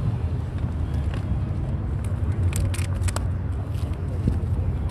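Outdoor car-show ambience: a steady low rumble with a few short clicks about two and a half to three seconds in.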